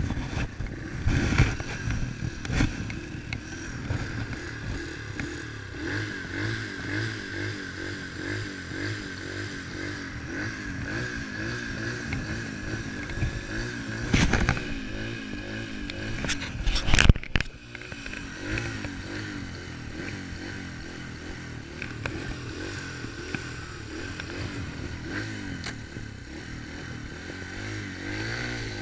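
Dirt bike engine idling, its note wobbling slightly up and down. A knock about 14 seconds in and a loud clatter about 17 seconds in break over it.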